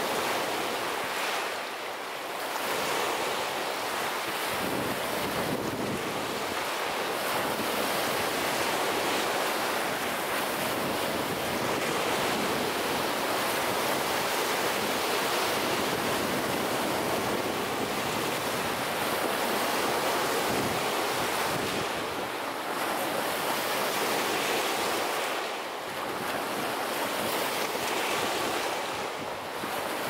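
Small lake waves breaking and washing up a sandy beach: a continuous wash of surf that eases briefly twice.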